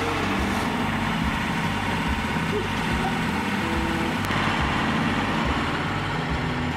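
Portable bandsaw mill's gas engine running steadily under load as its band blade saws through a beech log, with a continuous hiss from the cut.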